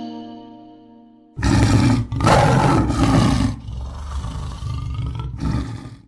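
Ringing mallet notes of an intro jingle die away, then about a second and a half in a loud big-cat roar sound effect cuts in. It runs for several seconds and ends with a shorter final burst.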